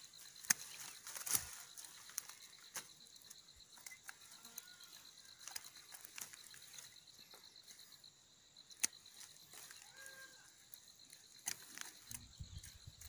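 Dry twigs and leaf litter crackling and snapping in scattered clicks as soil is dug out by hand around a shrub's roots, over a steady high-pitched insect trill.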